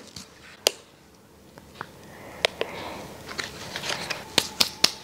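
Handling of small packets and a box on a table: scattered light clicks and taps, several close together near the end, over faint rustling.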